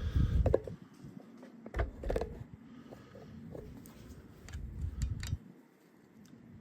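Light clicks and knocks with low rumbling from a MacPherson strut, its coil spring and top mount being handled during reassembly. The handling noise comes in short spells, loudest in the first second.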